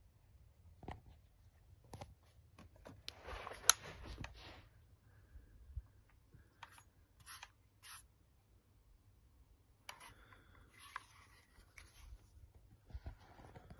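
Handling noise as a Webley Stinger BB pistol is picked up and turned over in the hand: soft rubbing and rustling with scattered clicks, the loudest a sharp click about four seconds in.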